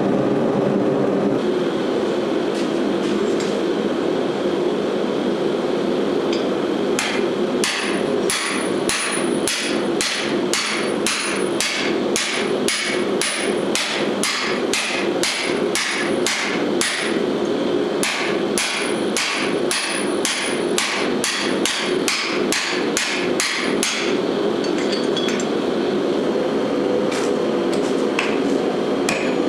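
Steady roar of the forge throughout. About seven seconds in, hammer blows on hot steel start at a regular pace of roughly two a second, each with a high ring. They break off briefly midway, then come more sparsely toward the end.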